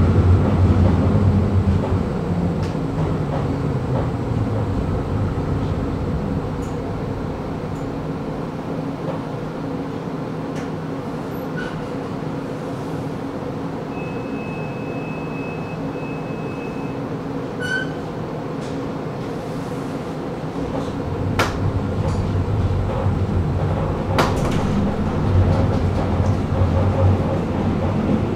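Tram slowing to a halt and standing with a steady electrical hum, while a high warning beep sounds for about three seconds. About 21 seconds in it pulls away, its motor and wheel rumble building again, with a couple of sharp clicks.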